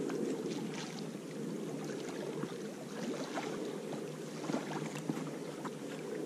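Steady wash of small waves lapping against the rocky lakeshore and wind on the camera, with scattered light taps; near the end, footsteps on the stony bank as someone walks up.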